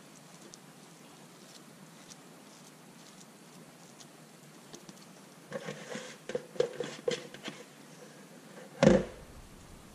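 Hands packing bread stuffing into a raw ptarmigan on a china plate: a run of small sticky clicks and crackles over a couple of seconds, then a single loud knock near the end.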